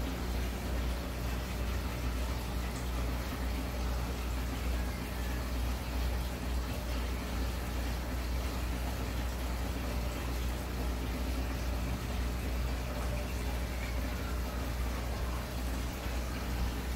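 Aquarium filtration running: a steady low hum with water bubbling and trickling.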